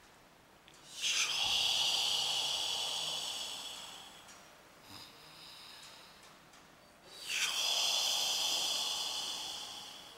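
Two long exhalations, about six seconds apart, each starting suddenly and fading out over about three seconds, breathed out during deep hand pressure on the abdomen in a chi massage.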